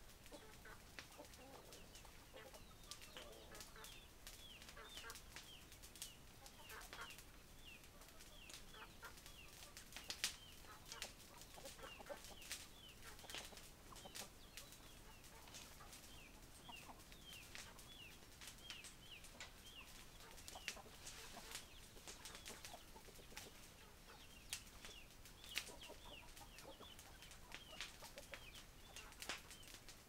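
Faint sounds of free-ranging chickens and roosters: soft clucks, many short, high, downward-sliding chirps repeated throughout, and scattered sharp ticks.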